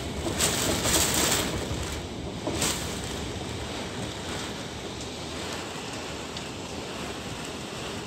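Typhoon wind and rain rushing steadily, with strong gusts hitting the microphone in the first few seconds.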